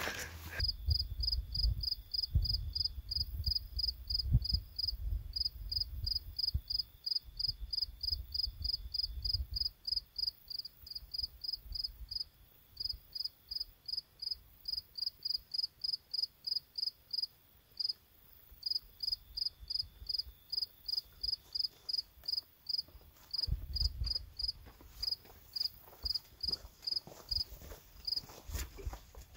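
A cricket chirping steadily, about three or four short high chirps a second, with brief pauses now and then.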